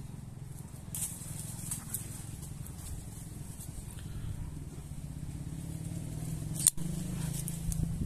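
Sixleaf SL-14 folding knife being handled with faint ticks, then its blade flicked open and snapping into lock with one sharp click about two-thirds of the way through. A steady low rumble runs underneath.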